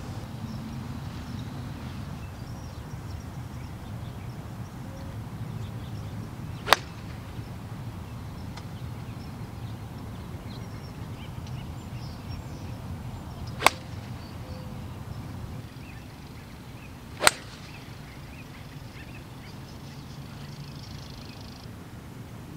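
Golf club striking range balls: three sharp cracks, the last two only a few seconds apart, over a steady low background rumble.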